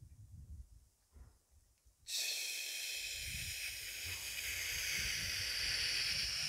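A person breathing out slowly and audibly, starting about two seconds in: a steady hiss of air for about four seconds that ends in a short, sharp, louder push. This is the slow exhale with a final sharp expulsion that closes a cycle of Tibetan heat-producing breathing.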